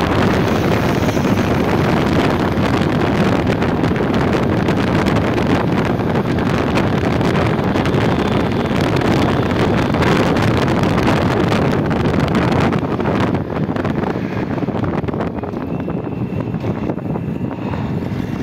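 Wind buffeting the microphone on a moving motorcycle, with road and engine noise beneath as a steady loud rush. About two-thirds of the way through the rush eases a little and the high hiss fades.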